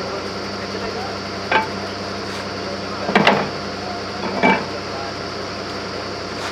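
A motor running with a steady low hum, with three sharp knocks or clanks over it: one about one and a half seconds in, a louder short cluster about three seconds in, and another about four and a half seconds in.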